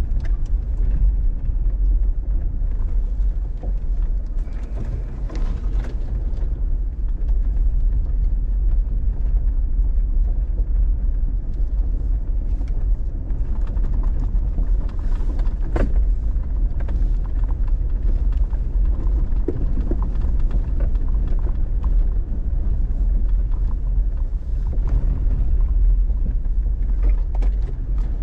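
Jeep Gladiator Rubicon driving slowly over a rough dirt trail: a steady low rumble from the engine and tyres, with scattered knocks and rattles, the sharpest knock about sixteen seconds in.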